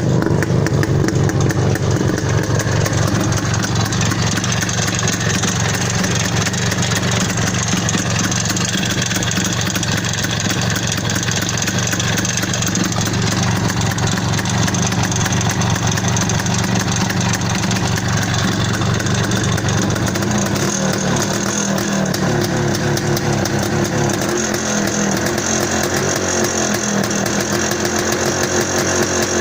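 IZh Planeta 5 motorcycle's single-cylinder two-stroke engine running steadily, with a knock that persists after the piston pin, small-end bushing, crankshaft and crankshaft bearings were all replaced; the owner cannot find its cause. Its note changes about two-thirds of the way through.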